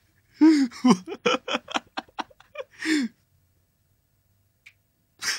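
A man laughing in a quick run of short bursts for about three seconds, then quiet.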